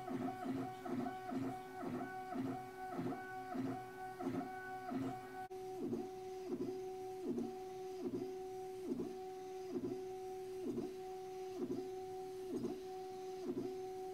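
3D printer stepper motors driving the axes on polymer bearings: a steady motor whine that dips briefly at each change of direction, a few times a second. About five seconds in it switches to the same printer fitted with stepper vibration dampers, and the whine becomes cleaner, with the higher overtones gone and the direction changes coming more slowly.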